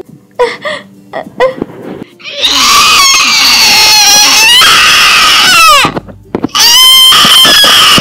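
A high voice screaming loudly in two long, wavering wails. The first starts about two and a half seconds in and the second about a second after the first ends. Each falls in pitch as it trails off.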